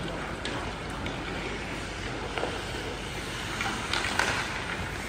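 Ice hockey play: a steady wash of skate blades on ice and arena noise, broken by a few sharp clacks of sticks and puck, the loudest cluster about four seconds in.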